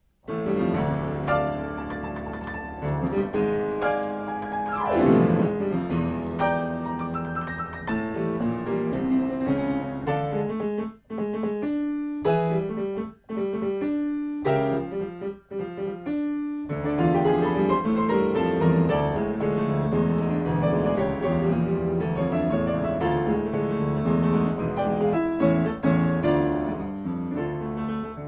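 Solo piano music, with three brief breaks in the middle.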